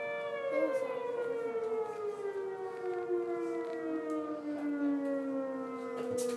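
Outdoor community warning siren: its held, many-toned wail begins to wind down about a third of a second in and keeps sliding lower in pitch. These are the sirens sounded over Richmond during the August 2012 Chevron refinery fire.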